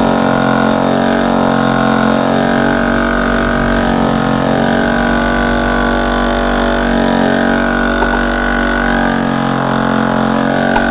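Battery-powered air compressor running steadily, a continuous even motor-and-pump drone.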